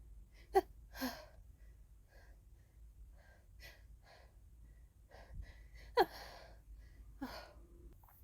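A woman's sneezing fit: sharp hitching gasps that fall in pitch, breaking into sneezes, with softer breaths between. The two loudest come about half a second in and about six seconds in, and a third sneeze follows about a second after the second.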